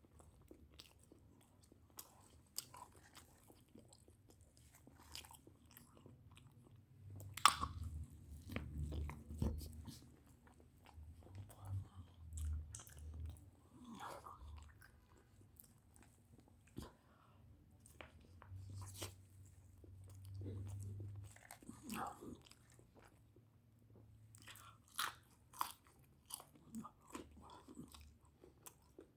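A person eating close to the microphone: crunchy bites and chewing, with many short sharp crackles and a few low muffled stretches, most likely the chicken burger being eaten.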